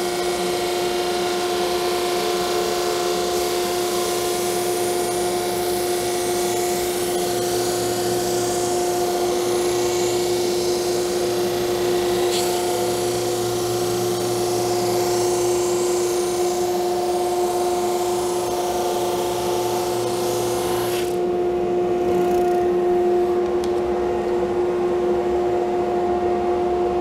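Single-ended drum sander running with a steady hum, sanding a hardwood veneer slice that is still oversized down to thickness, with a hiss of abrasive on wood. The hiss cuts off sharply about three-quarters of the way through while the machine keeps running.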